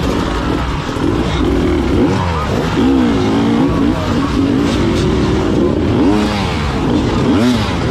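Several enduro motorcycle engines revving up and down over and over, overlapping one another.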